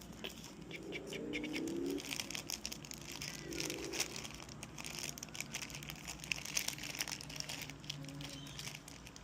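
Many small clicks and ticks of hands handling plastic RC-truck parts and a screwdriver, over a faint steady low hum, with a brief murmured voice about a second in.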